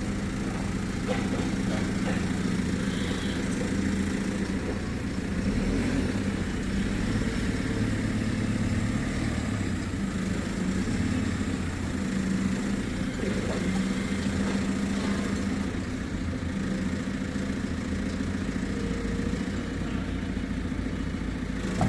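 Vehicle engine running steadily at low revs, a continuous hum with only slight shifts in pitch.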